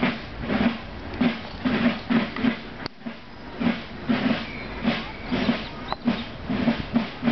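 Sienese contrada drum (tamburo) beating a march rhythm, used to practise the flag-waving for the Palio. The strokes come in uneven clusters of quick, rattling beats, with a short pause about three seconds in.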